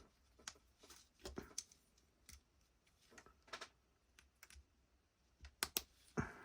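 Faint, irregular clicks and taps of small plastic Lego pieces being handled and pressed together, with a quick cluster of louder clicks near the end.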